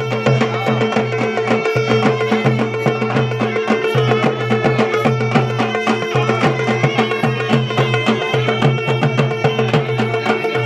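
Adivasi folk music over a steady held drone, with a quick, regular drum beat.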